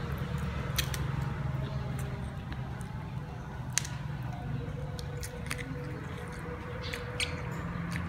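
Chewing, lip-smacking and finger-licking while eating fried chicken wings, with a few sharp wet clicks of biting. Under it runs a steady low hum.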